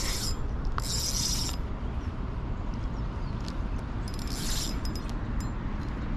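Spinning fishing reel whirring in three short bursts, each well under a second, while a small carp is being fought on light gear, over a steady low rumble.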